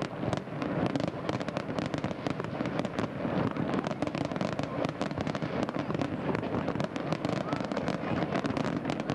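Fireworks crackling densely and continuously, many small pops running together without a break.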